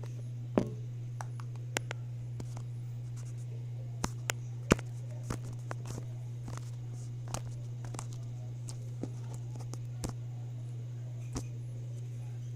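Homemade glue-and-paint slime being squeezed and handled, giving irregular sharp clicks and pops, the loudest a little under five seconds in, over a steady low hum.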